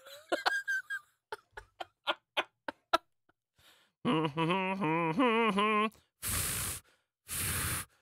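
A woman imitating blowing up a balloon with her mouth. A run of sharp clicks and pops comes first, then a wobbling, quavering vocal tone, then two long breathy blows near the end.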